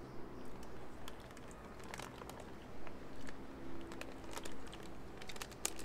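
A plastic snack package crinkling as it is handled, with scattered small crackles, over a faint low hum.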